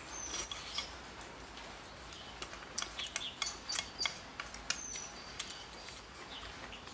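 Close-up eating sounds: wet chewing and lip smacks, with wooden chopsticks clicking and scraping against the bowl. A few short high chirps come through now and then.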